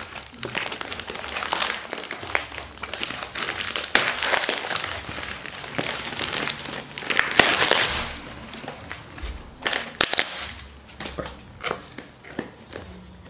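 Crinkling and crackling of tight courier packaging being torn and pulled off a product box by hand. It is a dense run of crackles, loudest around the middle, thinning to scattered crinkles near the end.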